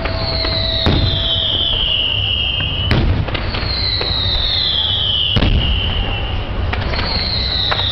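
Fireworks going off: sharp bangs at irregular intervals, three of them each followed by a high whistle that falls in pitch over about two seconds, over a steady low rumble.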